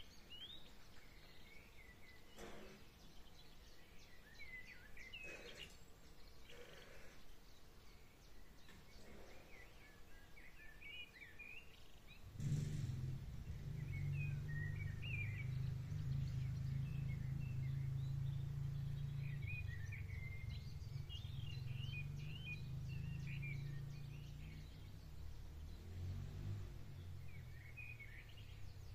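Songbirds chirping throughout. About halfway through, the low drone of the pitbike's 140 cc YX single-cylinder engine comes in suddenly from a distance while it is being ridden; the drone holds and then fades near the end.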